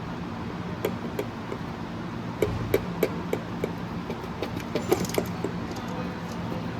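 Irregular metallic clinks and taps of hand tools and loose engine parts while the EGR cooler is unbolted from a 3.0 TDI diesel engine. The clinks bunch up in the middle, over a steady low hum.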